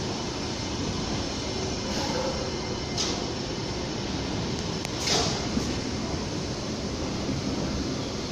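Astra IVA metro train running slowly, a steady rumble of wheels on rail heard from on board, with two brief sharp metallic sounds from the wheels and track about three and five seconds in, the second louder.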